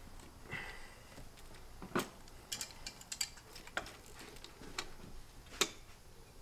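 Hands working in a car's engine bay, connecting a small hose: scattered light clicks and taps at an irregular pace, the sharpest about two seconds in and again near the end.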